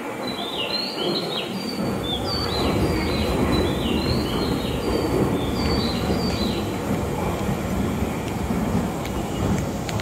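A quick run of short, high, falling bird-like chirps that stops about seven seconds in. Beneath it, a steady train rumble at the station grows louder about two seconds in.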